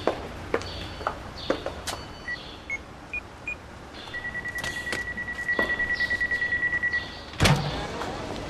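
High-heeled shoes clicking on pavement, about two steps a second, then four short electronic beeps from a door entry-phone keypad and a long pulsing buzz of the electric door release. A heavy door thuds near the end.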